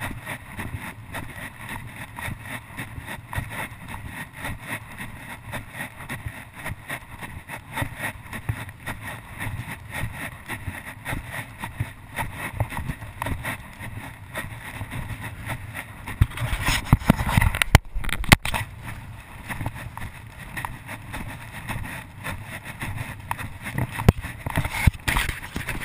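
Wind buffeting a body-worn action camera's microphone, mixed with the thuds of footfalls in loose sand as the wearer goes down the dune on foot. It gets louder and gustier a bit past halfway.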